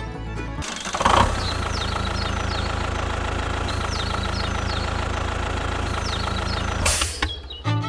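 A small motor running steadily for about six seconds, with a constant whine. Music plays at the very start and comes back near the end.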